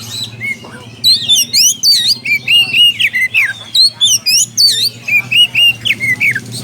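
Oriental magpie-robin (kacer) singing a loud, rapid run of whistles and sweeping notes, starting about a second in: its song for calling out a rival.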